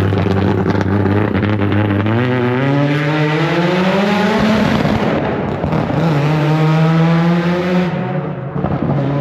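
Deep Orange 9 race car's engine accelerating, its pitch climbing steadily, then dropping about four and a half seconds in and again near the end, as at gear changes.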